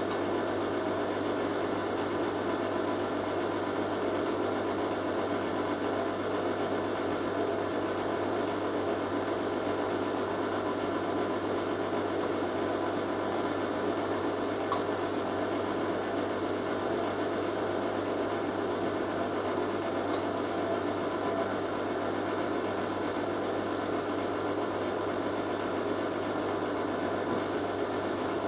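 Hoover A3060 Electronic 1100 washing machine on its distribution drain after the main wash: the drain pump running while the drum turns, a steady mechanical hum and whir.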